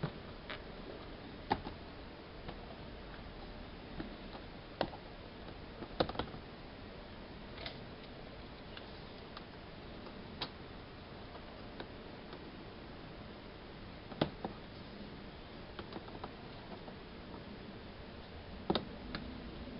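Rigid plastic trays being handled and lifted off a stack, giving scattered light knocks and clicks at irregular moments over a faint steady hiss.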